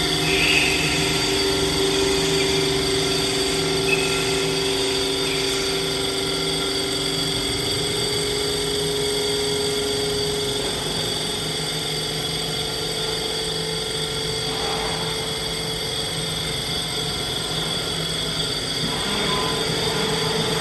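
CNC wood lathe running steadily, with the spindle motors whining in several steady tones while the tooling turns a wooden cup blank. The main tone steps up in pitch about halfway through.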